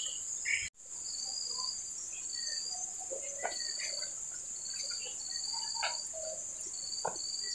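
Steady high-pitched drone of insects such as crickets or cicadas, with short chirps repeating about once a second over it. The sound drops out for an instant just under a second in.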